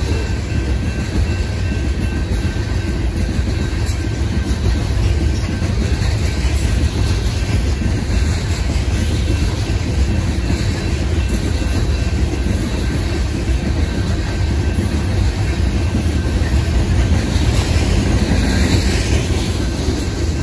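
Coal hopper cars of a long freight train rolling past: a steady low rumble of steel wheels on rail, with a brief swell of higher hiss near the end.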